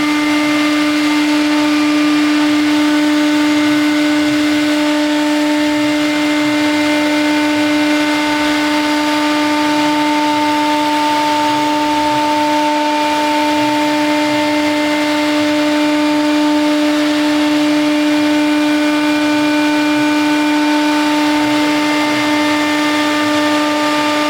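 High-speed CNC router's spindle running at a constant speed: a loud, steady whine with a few overtones above it and a faint uneven rumble below.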